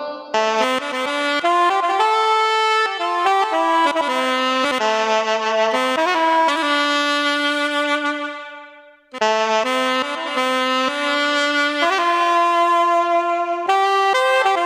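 Yamaha PSR-S750 arranger keyboard playing a single-line melody with its saxophone voice. Near the middle a long held note fades away almost to silence, then the melody picks up again.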